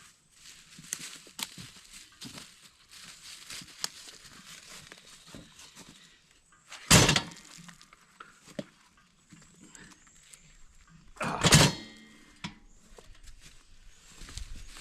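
Two heavy thuds about four and a half seconds apart, with lighter knocks and rustling between them.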